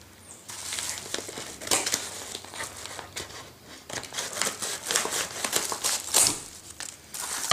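Yellow paper mailing envelope crinkling and rustling in irregular bursts as it is handled, with scissors cutting into the paper near the end.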